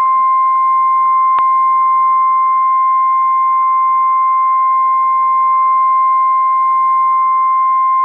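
Emergency Alert System attention signal: the National Weather Service's single steady warning tone of about 1050 Hz, held unbroken at full loudness, which announces that a weather warning message is about to be read. A faint click sounds about one and a half seconds in.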